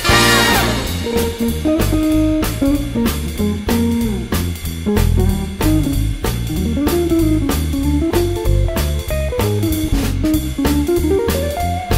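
Background music: an instrumental with guitar, bass and drums over a steady beat.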